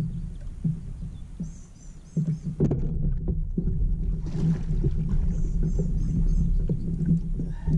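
Water slapping against a kayak hull, picked up by a camera mounted on the boat: a steady low rumble with scattered knocks from the hull and fishing gear while a big catfish is played on rod and reel. The level dips briefly about two seconds in, then comes back sharply.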